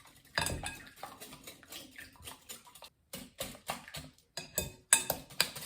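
Eggs being beaten in a bowl, a mixing utensil clicking against the bowl's side. The strokes are uneven at first, then come quickly and regularly, about five a second, near the end.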